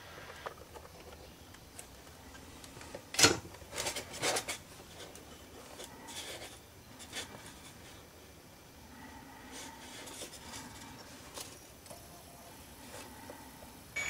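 Quiet handling on a workbench during cable soldering: scattered small clicks, taps and rubs, with one sharper knock about three seconds in.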